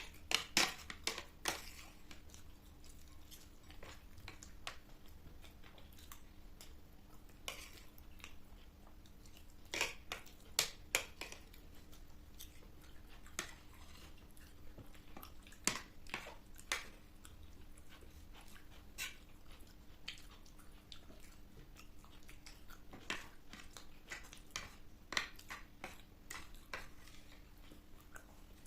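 Close-up eating sounds: scattered crunches and chewing of crisp panipuri (golgappa) shells, coming in clusters with pauses between. A faint steady hum runs underneath.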